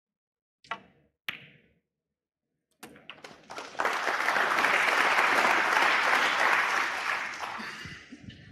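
Two sharp clicks of snooker balls, the cue tip striking the cue ball and then the cue ball hitting the pink, which is potted. About a second and a half later the crowd breaks into applause that swells, holds and fades near the end.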